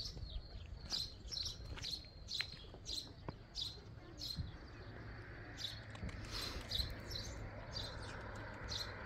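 Small birds chirping: short, high chirps repeated every half second or so, faint.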